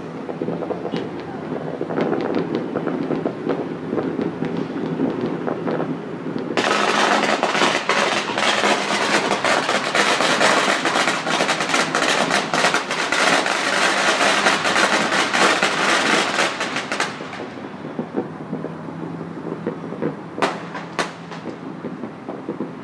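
A long string of firecrackers crackling rapidly and densely for about ten seconds, starting and stopping abruptly. Before and after it come scattered distant firework bangs over a steady low rumble.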